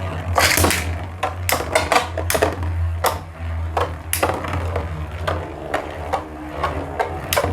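Two Beyblade Burst spinning tops, Tornado Destroyer and Tornado Leone, clashing in a plastic stadium: a run of sharp, irregular clicks and knocks as they strike each other and the stadium wall, over a steady low hum.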